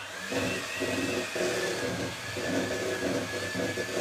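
Handheld electric mixer starting up and running, its beaters mixing egg yolks into cream in a stainless-steel bowl. A steady motor whine sits over an uneven churning of the beaters in the bowl.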